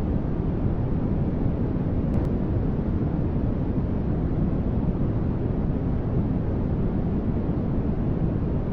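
Continuous sleep-noise track of steady static, its hiss heaviest in the low range and even throughout, with no changes.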